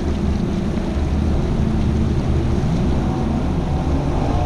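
Bass boat outboard motor idling, a steady low rumble, with wind and water noise over it.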